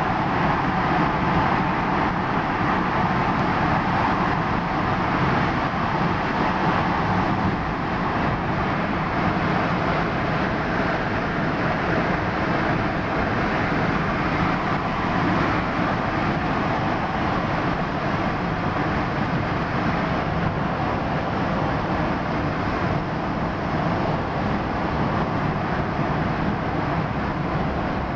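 Steady road noise of a car driving through a road tunnel, heard from inside the car: an even rush of tyre and engine noise with no distinct events.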